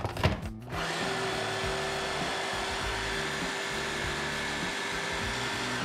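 Electric food chopper running steadily, starting about a second in and winding down at the end, mixing crushed biscuits with melted butter.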